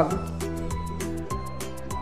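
Background music with a quick steady beat and a simple melody.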